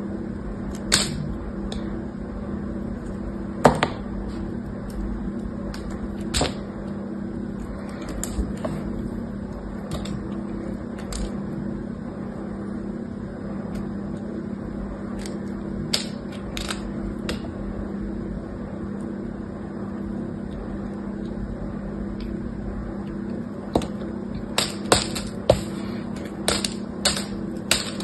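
A small knife carves and shaves a bar of green soap, giving sharp crackles and snaps as chips and curls break off. They come now and then, then in a quick cluster near the end, over a steady low hum.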